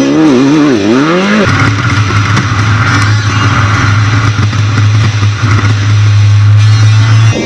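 Off-road race vehicle's engine revving up and down in quick swings, then holding a steady drone for several seconds before cutting off abruptly near the end.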